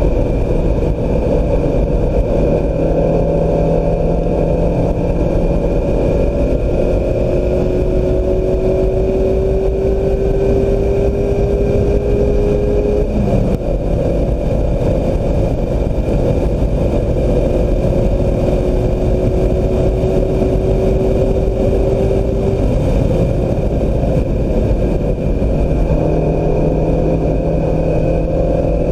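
2016 Mazda MX-5 Miata's four-cylinder engine under load on track, its note slowly climbing twice and dropping away sharply about 13 s and 22 s in, over heavy wind and road noise.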